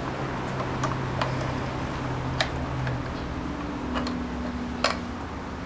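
Scattered light plastic clicks and taps as parts of a robot vacuum are handled and fitted back into place, over a low steady hum.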